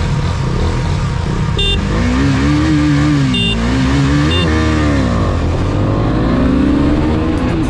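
250 cc single-cylinder motorcycle engines accelerating hard through the gears in a drag-race launch. The engine note climbs, falls back twice at upshifts, and climbs again, over heavy wind rumble on the microphone.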